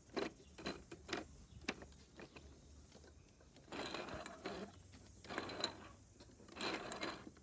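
Hand-cranked eight-cylinder model of a variable-compression engine turning over: its plastic gears and linkages click several times a second at first, then give a rattling whir that swells and fades about every second and a half as the crank goes round.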